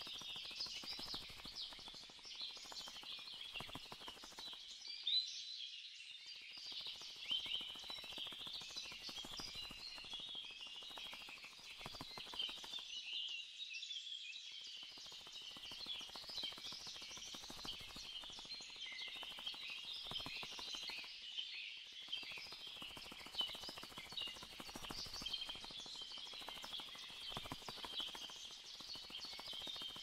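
A large flock of small birds chattering in a marsh, many chirps and calls overlapping into one continuous twittering.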